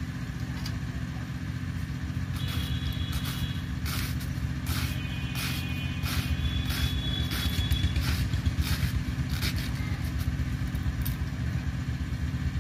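Cabbage being sliced into fine shreds, with short cutting strokes about once or twice a second, over a steady low engine hum.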